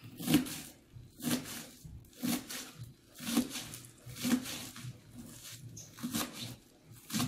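Knife chopping fresh mallow leaves on a plastic cutting board in sharp strokes, roughly one a second.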